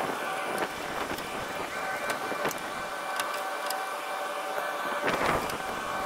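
Steady machine whine carrying a few held tones, with scattered sharp clicks and rattles of plastic wire-harness plugs being worked off an HVAC control board.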